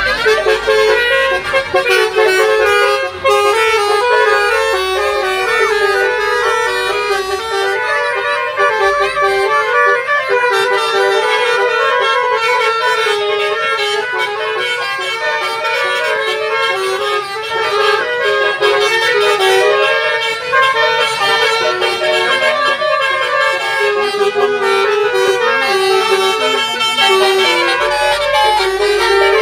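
Multi-tone Basuri telolet horn playing a tune: a quick, continuous run of horn notes, several pitches sounding together and changing every fraction of a second.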